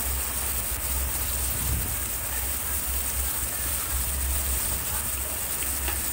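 Drumstick pieces with onion and tomato sizzling steadily in hot oil in a kadai as they are stirred with a steel spatula, frying so the drumsticks soften. A low hum runs underneath.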